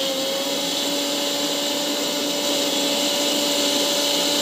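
Mixer grinder running steadily, blending strawberries and milk into a milkshake: a steady motor whine holding one pitch over the rushing churn of the liquid in the jar.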